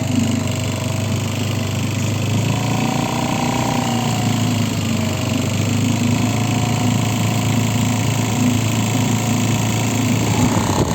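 Small Mercury 3.5 hp four-stroke outboard motor running steadily, pushing a small inflatable boat; the motor is still being run in.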